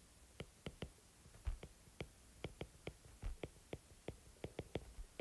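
Stylus tip tapping and clicking on a tablet's glass screen while handwriting, a faint, quick, irregular run of small taps, some in pairs.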